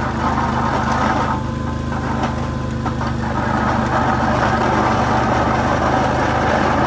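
Four-wheeler (ATV) engine running steadily while it pushes a front snow plow, a little quieter for a couple of seconds near the start.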